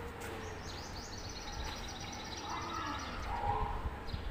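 Steady low ambient rumble with a bird singing a fast, high trill of many short repeated notes for about a second and a half, starting about half a second in.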